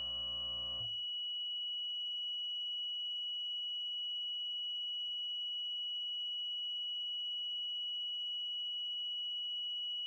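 Control-panel sounder of a Toggleblok pollution containment valve giving one steady, unbroken high-pitched beep tone. It sounds while the controller checks that the valve's closed-position signal is correct. A lower hum cuts off about a second in.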